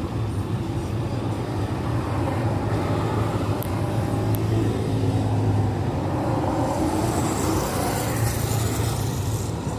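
Enoden electric train running past close by: a steady low rumble with a hiss that builds toward the end, a couple of light clicks partway through, then it cuts off suddenly.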